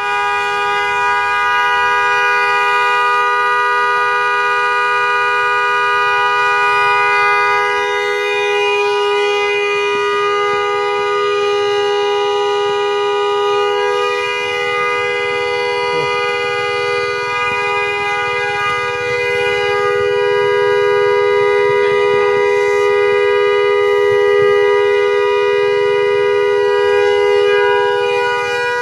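Pick-up truck's horn sounding continuously as one steady two-note tone, without a break: stuck on, going off by itself with no one pressing it.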